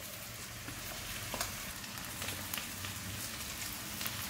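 Potatoes, cauliflower and green peppers sizzling in a little oil in a pot, a steady hiss. Several light clicks of a steel spoon scraping spice powder off a steel plate into the pot.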